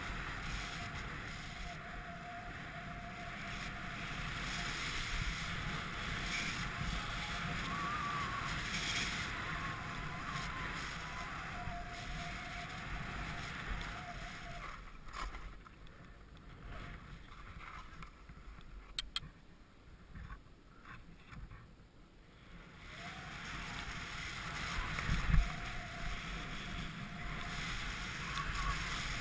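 Wind rushing over the microphone and skis sliding and hissing on snow during a downhill run. It drops off for several seconds in the middle, and a single sharp knock comes a few seconds before the end.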